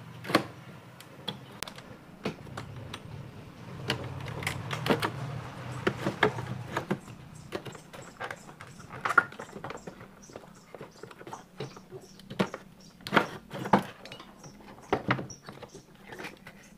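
Clicking, knocking and rattling of a CRT television's circuit board and its wiring being handled and lifted out of the plastic cabinet. It comes as scattered sharp knocks, with several louder ones in the middle and later part.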